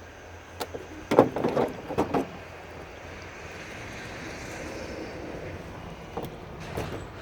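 Knocks and clatter from a tankless water heater being taken apart by hand: a quick cluster of knocks about a second in and a few more near the end, with a soft hiss between them.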